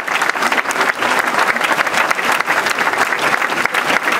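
Audience applause, many hands clapping steadily without a break, greeting a dance couple as it is introduced.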